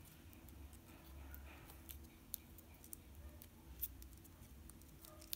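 Faint, scattered light clicks and taps from hands handling a plastic micro-drone frame and fitting a small stick LiPo battery into its holder. A few sharper clicks stand out, over a low steady hum.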